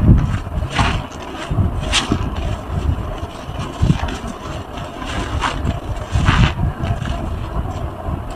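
Gloved hands squeezing and kneading big foam sponges soaked in a thick lather of detergent and soap. It gives repeated, irregular wet squelches and crackling suds, about one squeeze every second or so.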